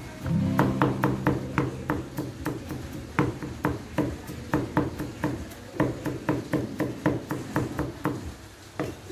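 Knife chopping food on a cutting board: quick repeated strikes, about three to four a second, easing off briefly near the end.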